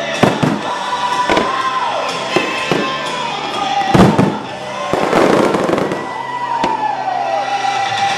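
Aerial firework shells bursting in a string of bangs, the loudest about four seconds in, followed just after by a dense crackle. Music plays steadily underneath.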